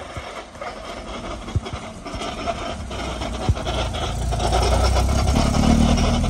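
Classic Alfa Romeo GTV coupe's twin-cam four-cylinder driving slowly up and past, its engine and drivetrain growing louder as it nears and loudest near the end. A few sharp ticks come before it arrives.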